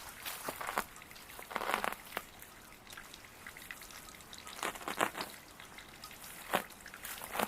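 Water trickling and splashing from a small garden waterfall, with irregular crackles and short louder splashes or rustles.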